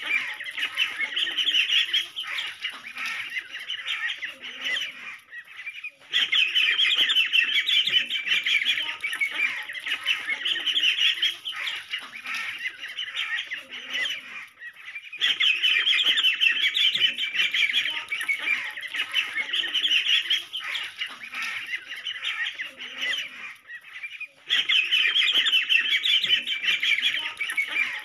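A crowd of ducklings peeping: a dense, continuous chatter of rapid high-pitched peeps, swelling louder about every nine seconds.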